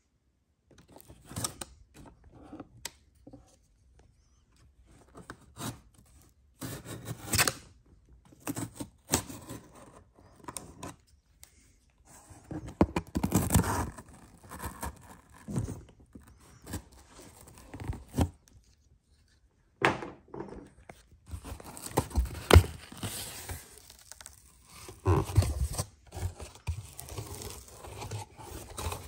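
Handling noise from unboxing: irregular scrapes, rustles and knocks as packaging is opened and pulled apart, with a couple of short pauses.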